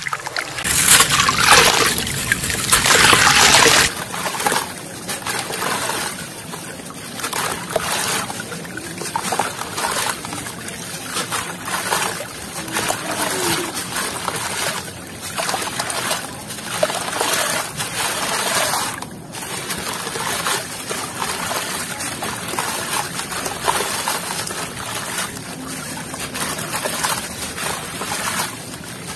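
Hands squishing wet mud in a basin of water for the first few seconds, then, after an abrupt change, clumps of damp sand crumbled by hand into a tub of water, the grit splashing and trickling into the water in repeated bursts every second or two.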